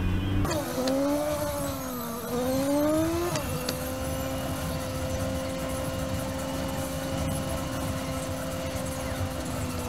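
Car engine heard from inside the car on a sped-up dashcam recording. The engine note rises and falls over the first few seconds, then holds a steady pitch while cruising.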